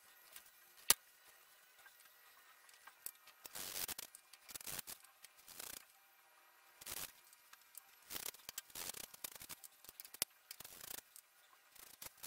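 Thin wooden strips being picked up, slid and set down on a plywood board and wooden bench: scattered light clacks and brief scraping rustles, with one sharp click about a second in.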